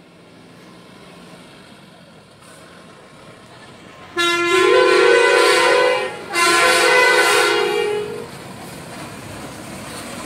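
Truck horn sounding two long blasts, each about two seconds, with two notes together, over a steady engine that grows louder near the end.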